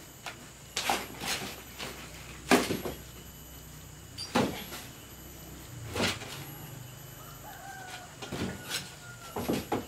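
Scattered knocks and scrapes of a person shifting about on a wooden seat, with a faint drawn-out squeak near the end.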